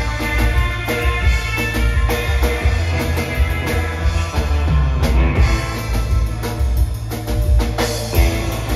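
A live surf rock band playing: an electric guitar over a Yamaha drum kit and a plucked upright double bass, with a steady drum beat.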